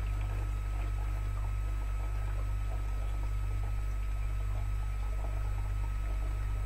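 Water swirling down through a homemade two-bottle vortexer, two bottle caps glued together with a hole between them, trickling faintly. A steady low hum lies under it, with a faint steady high tone.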